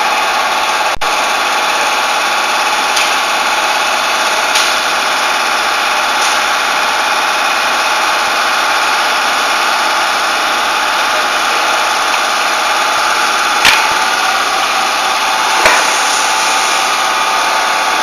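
Wire stripping and crimping machine running with a steady mechanical hum, with a few faint clicks.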